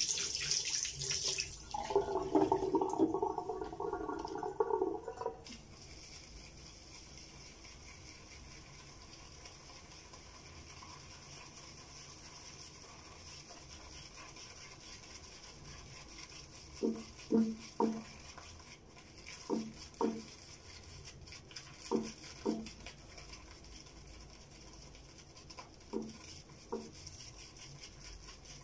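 Water splashing and running at a bathroom sink for the first five seconds or so. Then comes a faint steady hiss, with a few short light knocks, mostly in pairs, in the second half.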